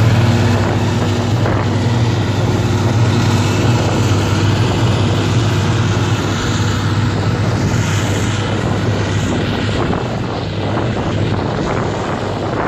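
Claas Jaguar 870 self-propelled forage harvester chopping grass under load, its engine and chopping gear making a steady low drone, mixed with the tractor pulling the forage wagon alongside. The drone eases a little as the machines move away.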